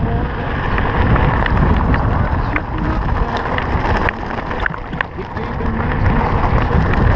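Wind buffeting the camera microphone and tyres crunching over gravel as a Scott Genius mountain bike rolls fast downhill, with scattered small clicks and rattles from the bike and stones.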